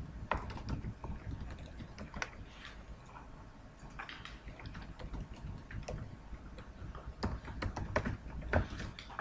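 Typing on a computer keyboard: irregular runs of keystrokes, with a few louder key presses near the end.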